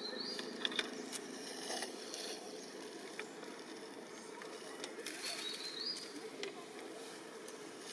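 Outdoor ambience with a steady low hum, broken by two short, high, rising chirps about five seconds apart and a few faint clicks.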